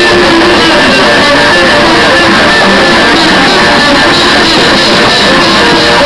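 A metal band of electric guitars, bass guitar and drums playing an instrumental metalcore song without vocals, loud and dense, with the rough, poor-quality sound of an overloaded camera microphone.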